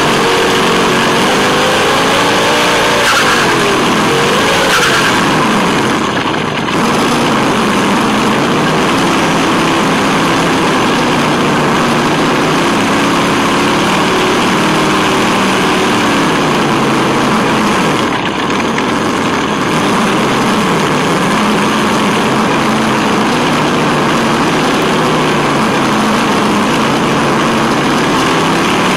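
Tamiya Wild Willy 2 RC truck's electric motor and gears whining as it drives, the pitch rising and falling with the throttle, over a steady rushing noise of tyres on asphalt. It eases off briefly twice, a few seconds in and about two-thirds of the way through.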